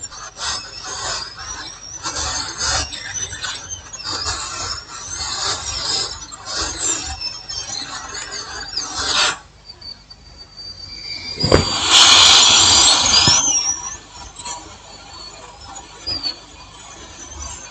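Hot-air rework station blowing on a laptop motherboard to desolder a capacitor: a hiss with wavering high-pitched squealing. It dips briefly, then comes back louder for about two seconds near the middle.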